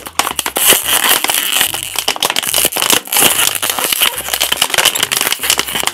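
Empty plastic water bottle, lid screwed on, crackling and crinkling in a dense, irregular run as it is twisted and squeezed hard to compress the air inside.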